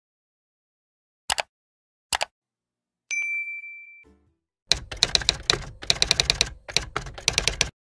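End-screen sound effects: two short clicks, then a single bell-like ding that rings and fades, then a rapid run of typing clicks like a keyboard or typewriter.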